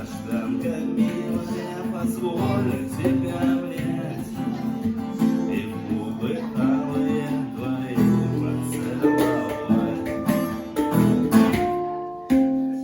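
Acoustic guitar strumming chords, with no singing.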